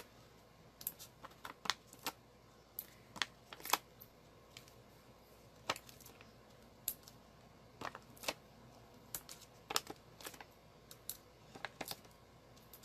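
Irregular light clicks and taps, one or two a second, of paper being handled on a craft table: foam adhesive dimensionals peeled off their backing sheet and pressed onto a card layer.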